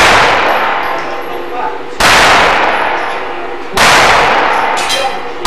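A slow string of handgun shots fired one-handed, strong hand only, about one every two seconds, each followed by a long echoing decay.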